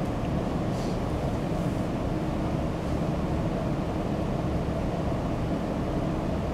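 Steady low room rumble with no distinct events.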